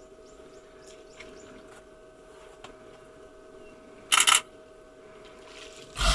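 Camera shutters firing in a short rapid burst about four seconds in, and another burst starting near the end.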